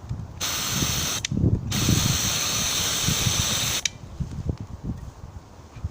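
Antizver aerosol defence spray canister discharging in two strong hissing bursts: a short one about half a second in, then a longer one of about two seconds that cuts off sharply. Wind rumbles on the microphone underneath.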